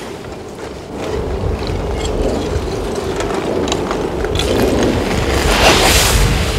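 Front of an advancing 'a'a lava flow on Etna: its cooling crust cracking and crumbling with scattered glassy clicks over a steady low rumble. Near the end a louder surge of breaking and tumbling comes as the front splits open.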